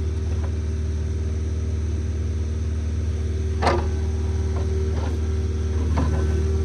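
Diesel engine of an excavator running steadily with a constant low hum, with a sharp knock a little past halfway and a lighter one near the end.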